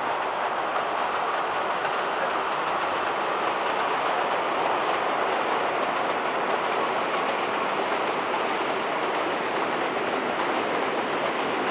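Freight train of box and tank wagons rolling past: a steady rumble of wheels on the rails.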